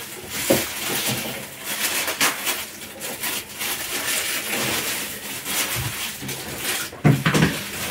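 Crackly rustling and light handling knocks as bread is laid out on an open electric sandwich toaster, with a brief louder sound about seven seconds in.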